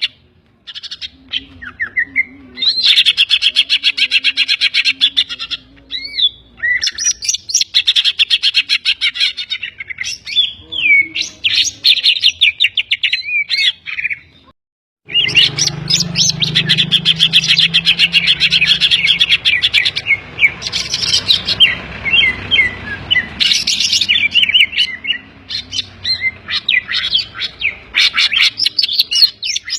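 Cucak ijo (green leafbird) singing a loud, fast, varied song of rapid chirps, trills and whistled slurs, its repertoire filled with mimicked kapas tembak (bulbul) and tengkek (kingfisher) phrases. The song breaks off briefly about halfway through, then resumes over a low rumble for a few seconds.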